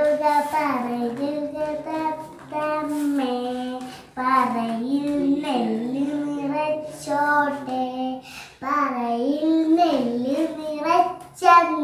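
A young girl singing solo without accompaniment, in sung phrases separated by short breaths.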